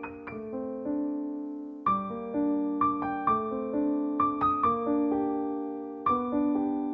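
Background music: a solo piano (or electric piano) playing a gentle arpeggiated melody, notes struck and left to ring.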